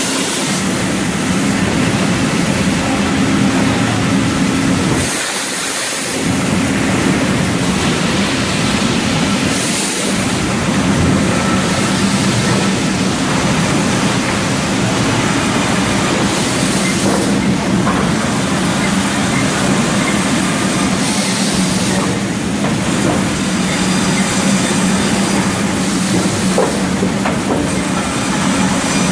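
Lumber mill machinery running loudly: a steady mechanical din with a constant low hum, with short bursts of hiss several times.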